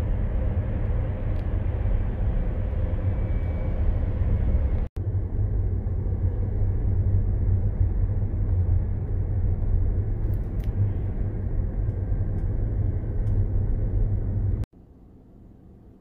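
Steady low rumble of road and wind noise inside a moving Tesla Model S, an electric car with no engine note. It cuts out for an instant about five seconds in. Near the end it drops abruptly to a faint hum.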